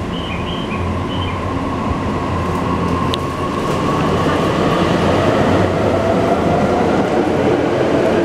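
E259 series electric train pulling out of the station and accelerating past at close range. The whine of its inverter-driven traction motors slowly rises in pitch over the rumble of wheels on the rails, growing louder as it gathers speed.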